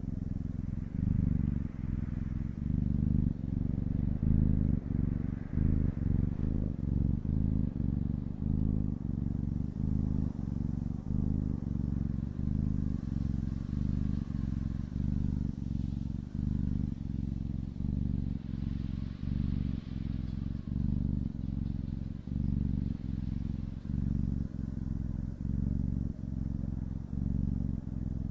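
Domestic cat purring close to the microphone: a low, continuous rumble that pulses with brief dips about once a second as the cat breathes in and out.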